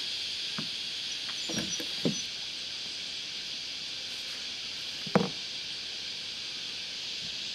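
Four short knocks, the loudest about five seconds in, over a steady high-pitched hiss.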